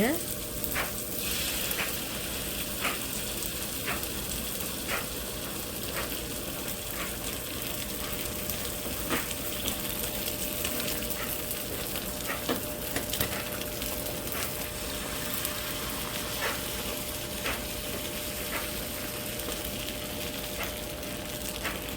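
Beaten-egg omelette mixture frying in a pan with onions, tomatoes and green chilies, sizzling steadily, with occasional light clicks.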